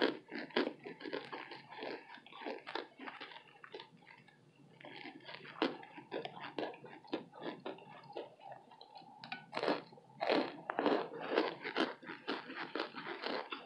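Chewing of a burnt baked cornstarch brick: a quick run of dry, crackly crunches. They thin out briefly about four seconds in, then grow denser and louder from about nine seconds on.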